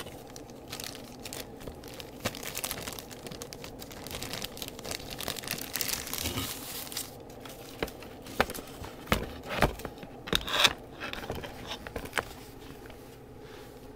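Plastic packaging crinkling and rustling as a keyboard is pulled out of its wrap, with a few sharp knocks and louder crinkles from about 8 to 12 seconds in.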